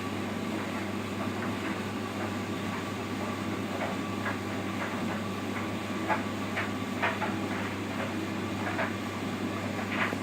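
Simpson tumble dryer running: a steady motor and drum hum with irregular light knocks and clicks from the load tumbling in the drum.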